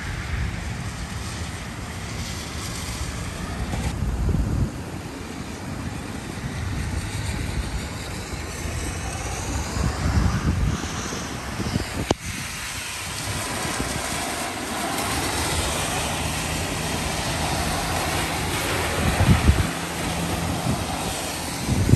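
Wind buffeting the microphone over a steady rushing noise, with gusty low rumbles. The sound breaks off sharply about twelve seconds in and picks up again, and a faint steady hum comes in during the second half.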